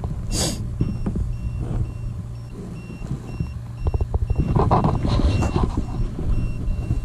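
A high electronic beep repeating steadily about three times a second, like an alarm. There is a brief hiss about half a second in. From about four seconds in, louder knocks and rumble come in under the beeping.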